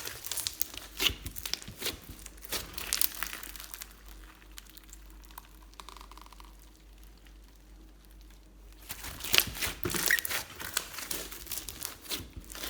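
Glossy slime being squished and stretched by hand, making dense sticky crackles and pops. It goes quieter for a few seconds in the middle, then the crackling picks up again.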